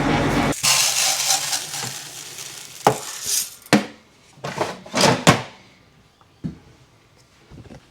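A grain moisture tester being worked by hand: a run of sharp plastic clacks and rattles as its bottom door and sample tray are opened and emptied, after vehicle road noise cuts off about half a second in.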